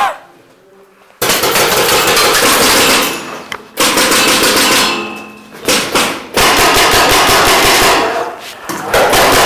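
Paintball markers firing in long rapid-fire bursts close by, the shots coming in several strings with short breaks between them, starting about a second in.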